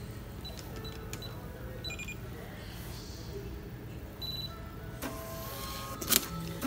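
Card payment terminal giving short electronic beeps, then printing a receipt that is torn off near the end, over a steady low hum.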